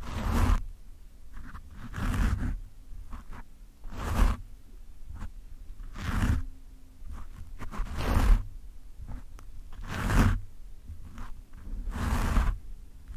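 Fingernails scratching a foam microphone windscreen close up. Rough scratching swells about every two seconds, with lighter scratches in between.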